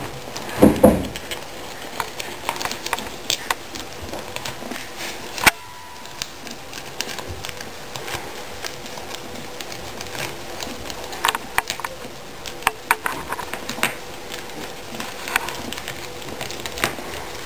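Guinea pigs chewing leafy greens and shuffling in wood-shaving bedding: scattered small crunching clicks and rustles. There is a low thump just under a second in and a single sharp click about five and a half seconds in.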